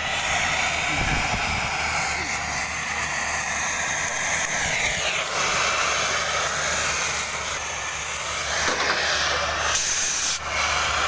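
Oxy-fuel cutting torch hissing steadily as it works 20 mm steel plate, with a low steady hum underneath.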